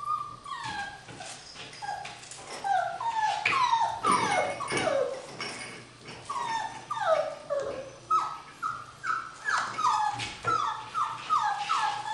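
Six-week-old Border Collie puppies whining and yipping: short high cries, each dropping in pitch. They come scattered at first, then settle into a steady string of about two a second near the end.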